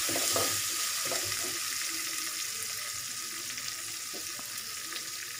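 Oil sizzling steadily in a metal kadai as a tempering of dals, ginger and green chilli fries, with a ladle stirring against the pan in the first second or so.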